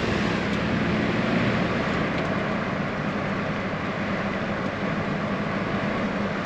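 A vehicle driving steadily: an even engine hum under road and tyre noise, with no change in pace.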